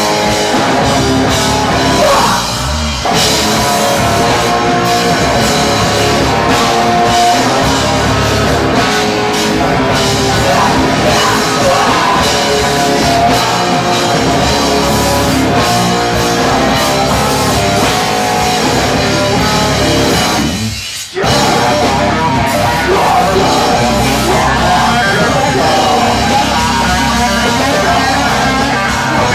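Live heavy rock band playing loud: bass guitar, drum kit and shouted vocals into a microphone. A brief stop about 21 seconds in, then the band comes straight back in.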